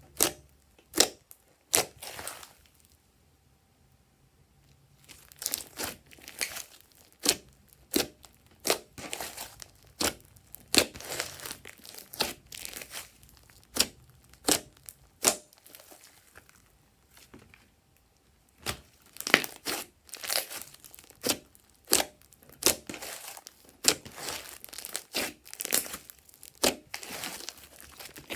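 Glossy slime being squished, folded and stretched by hand, giving a run of sticky popping and crackling clicks about one or two a second, with two short pauses.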